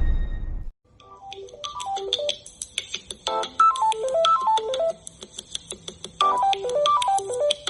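A smartphone ringtone: a melody of quick plucked-sounding notes, stepping down and up in a phrase that repeats about every three seconds. At the very start the tail of a loud crashing noise fades out just before the ringtone begins.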